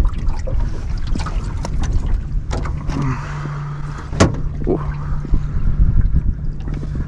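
Redfish (red drum) drumming while held by hand out of the landing net: a steady low hum that starts about two seconds in. Rustling and knocks of handling run alongside, with one sharp knock about four seconds in.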